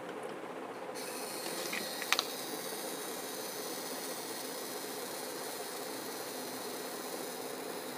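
Small 12 V DC gear motor of a motorized ball valve actuator running, its gear train whirring steadily, with one short click about two seconds in.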